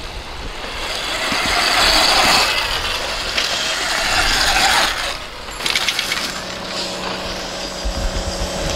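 Electric dirt bikes riding on a dirt track: two long swells of tyre noise on loose dirt, then a steady low motor hum in the last few seconds.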